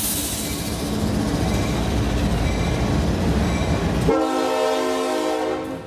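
Train running past with a steady rumble; about four seconds in, a locomotive air horn sounds several tones at once for nearly two seconds, then cuts off suddenly.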